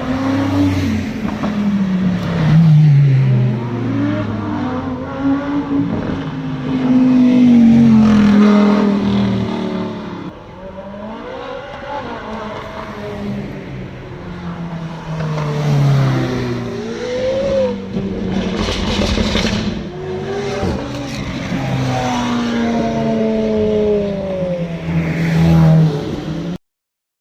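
Hypercar engine and exhaust revving hard, its pitch rising and falling again and again through accelerations and gear changes. It cuts off suddenly near the end.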